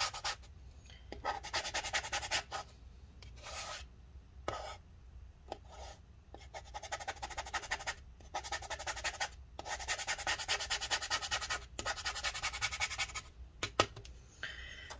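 Thin metal pry tool scraping old battery adhesive residue off the aluminium case of a MacBook Pro, in runs of quick back-and-forth strokes broken by short pauses.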